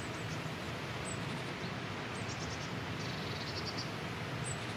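Small songbirds chirping in short high calls, with a quick trill about three seconds in, over a steady rushing background noise.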